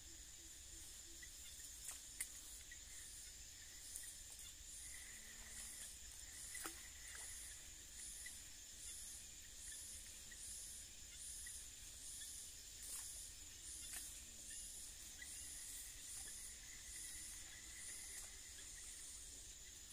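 Faint insects calling: a steady high-pitched buzz with a high chirp pulsing about once every 0.7 seconds, and a few soft clicks scattered through it.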